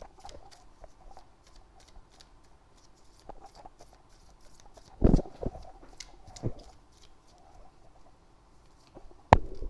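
A deck of tarot cards shuffled by hand: a run of faint quick flicks and slides of card on card, with two louder thumps about five and six and a half seconds in and a sharp tap near the end.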